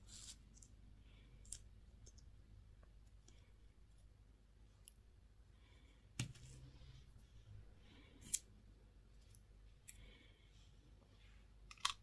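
Faint, scattered clicks and small taps of small objects being handled, with a few sharper clicks about six, eight and twelve seconds in, against near silence.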